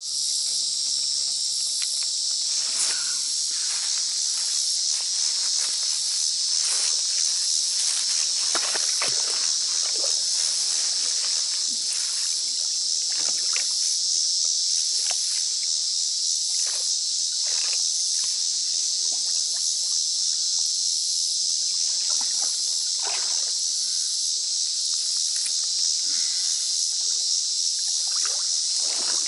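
Steady high-pitched chorus of insects, the loudest sound, with scattered short splashes and sloshes from wading and dragging a plastic leaf rake through algae-covered pond water.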